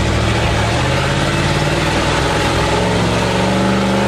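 Old carbureted GMC pickup truck's engine pulling under load up a steep dirt hill, its revs climbing slowly and then holding steady.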